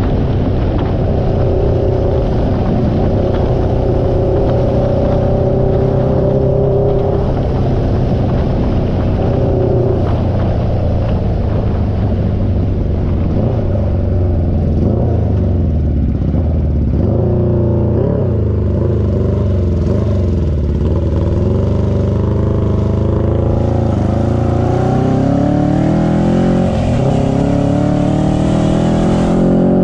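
1980 Honda CB750F's inline-four engine and exhaust while riding. The note holds steady at first, drops off about halfway through, then climbs steadily as the bike accelerates near the end.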